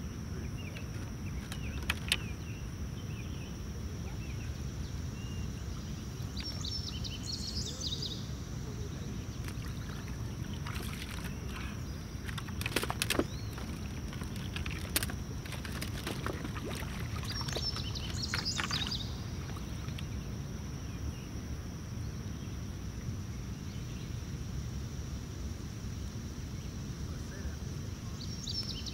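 Lakeshore ambience: a low steady background rumble with a thin, steady high insect drone, and a bird calling three times, about ten seconds apart. A few sharp clicks and knocks come through, the loudest about two seconds in and near the middle.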